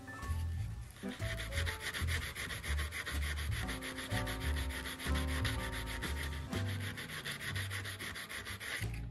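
Hand-sanding the edge of a thin stainless-steel sheet with folded sandpaper: quick, rhythmic back-and-forth rasping strokes smoothing the cut edge. Background music with a pulsing bass plays underneath.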